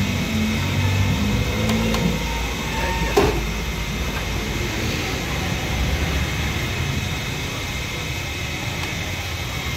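Hot oil sizzling in a karahi at a street stall as fried chicken is lifted out with a slotted metal skimmer, over steady street noise. A low hum fades over the first two seconds, and a single metallic clink sounds about three seconds in.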